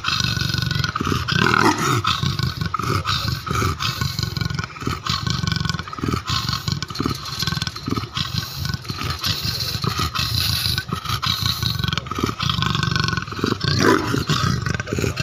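Captive leopard snarling and growling with bared fangs, a long run of short, harsh snarls: an angry, threat display at the fence.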